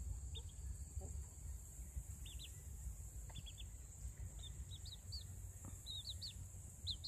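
Young chicks peeping: short high chirps in twos and threes, coming more often in the second half, over a steady low rumble.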